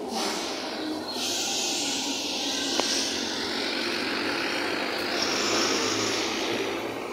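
A car driving past on the road, its tyre and engine noise swelling to its loudest about five to six seconds in and then easing off.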